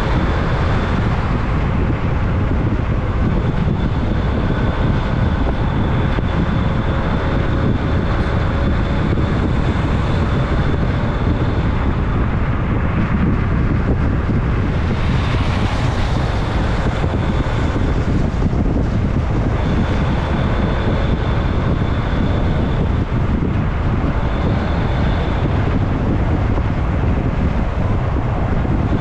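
A vehicle driving along a highway: steady engine and road noise with wind buffeting the microphone and a faint high whistle that comes and goes.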